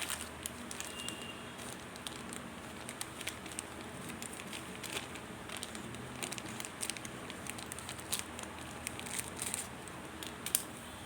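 Mothballs being handled: irregular light clicks and crinkles over a steady low hiss.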